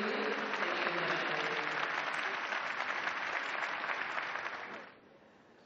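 Audience applauding with dense clapping, which fades away to near quiet about five seconds in.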